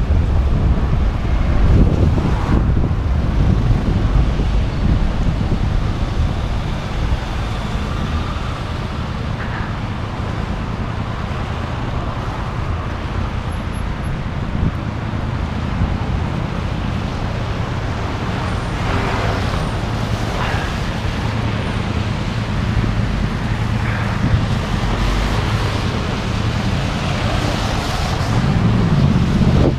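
Road traffic noise with wind buffeting the microphone on a moving bicycle. A steady low rumble of passing motor vehicles grows louder near the end with a wavering engine sound.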